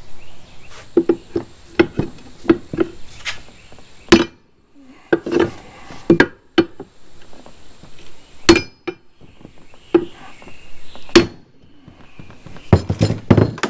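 Irregular metal knocks and clanks of tools working at a stubborn steel bracket whose bolts are stripped, a few of the strikes ringing briefly. Two hits about two-thirds of the way through are the loudest.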